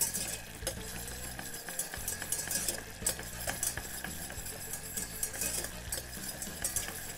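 Wire whisk stirring tomato paste frying in olive oil in a small stainless steel saucepan, the oil sizzling steadily under irregular light clicks and scrapes of the wires against the pan.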